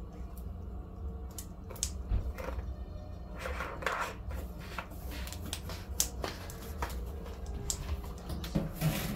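Scattered light clicks and knocks of kitchen items being handled, including a bottle and a cabinet, over a low steady hum.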